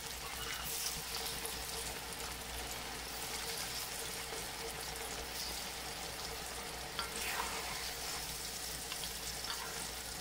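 Marinated pork pieces deep-frying in hot oil in a steel wok: a steady sizzle of bubbling oil.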